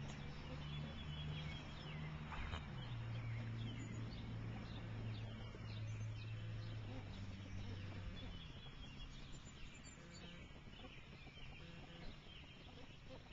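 Short, high bird chirps scattered throughout, over a steady low hum that fades out about eight seconds in.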